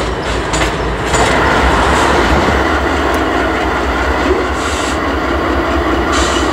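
Freight train rolling by, its wheels clicking over rail joints, then about a second in a louder, steady rumble of rolling wheels and cars.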